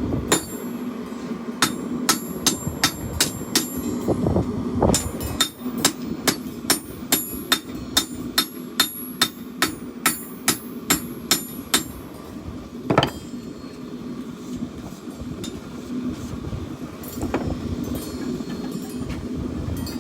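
Hand hammer striking steel on an anvil while forging a chopper blade: two quick runs of sharp blows, about three a second, through the first twelve seconds, then single blows about 13 and 17 seconds in, over a steady low hum.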